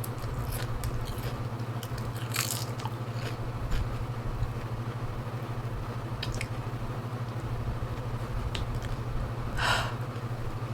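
A person biting and chewing a crisp roasted seaweed snack (original-flavour nori glazed with sauce and sugar granules), with irregular sharp crunches every second or two over a steady low hum.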